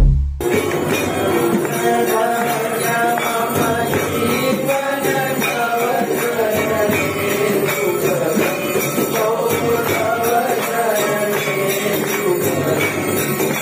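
Temple aarti music: rhythmic jingling of bells and small cymbals under voices singing. It starts about half a second in.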